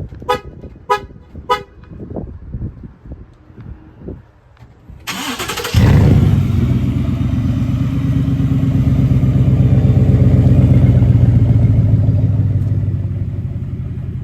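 Three short beeps, then about five seconds in the starter cranks and the 2018 Ford F-150's 5.0 V8 catches and settles into a loud, deep idle through its freshly fitted custom cat-back exhaust, which ends in an open dump with no tip. The idle eases slightly near the end.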